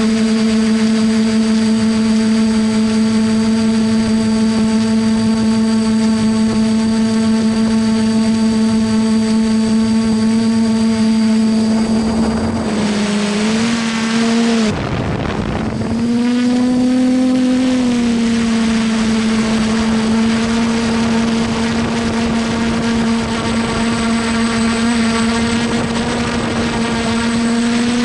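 A small drone's electric motors and propellers running steadily, as heard from its onboard camera. About halfway the pitch dips and wavers for a few seconds as the craft manoeuvres, then it settles back to a steady hum slightly higher than before.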